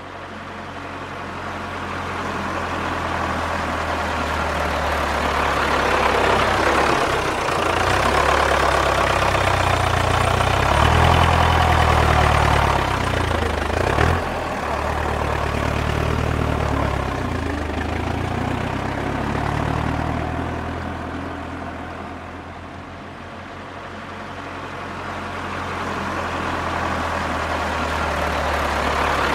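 Tractor engine running, its pitch rising and falling a few times in the middle, with a single sharp knock about halfway through. It fades in at the start and grows quieter for a while in the last third before rising again.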